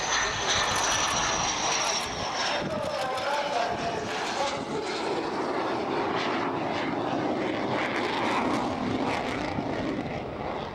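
Panavia Tornado's twin RB199 turbofan engines in a loud display pass, with a high whine that falls slightly in pitch over the first few seconds; the jet noise eases off near the end.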